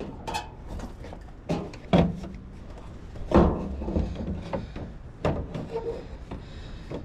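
Hard plastic knocks and scraping as a van's front signal light housing is worked and pushed to seat it, a handful of sharp clunks with rubbing between them.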